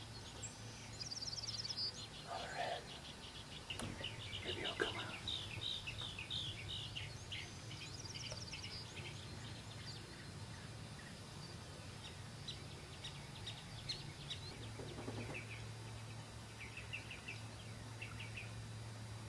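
Wild songbirds chirping, with a rapid high trill twice, about a second in and again around eight seconds, over a faint steady low hum.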